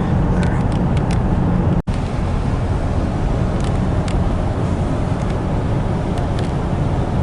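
Steady road and engine rumble inside a car's cabin while driving, with a momentary dropout a little under two seconds in.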